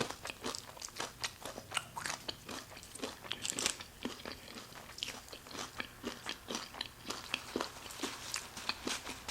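Chewing crispy battered onion rings: irregular crunches and crackles, several a second.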